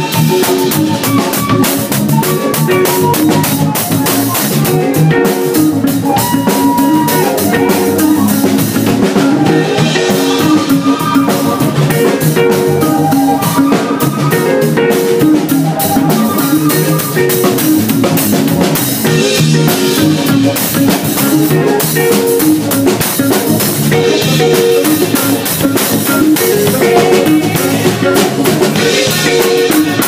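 Live soul band playing a number: drum kit and guitar keeping a steady groove, with a flute playing melody lines over them.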